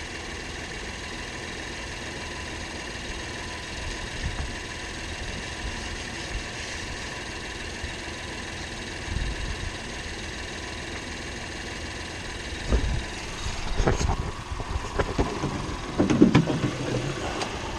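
2016 Acura MDX's 3.5-litre V6 idling steadily after its oil change. In the last few seconds, a few knocks and clatters sound over it.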